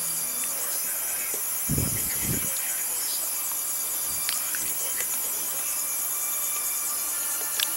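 Steady hiss of background noise picked up by the recording microphone, with two dull low thumps about two seconds in and a few faint clicks.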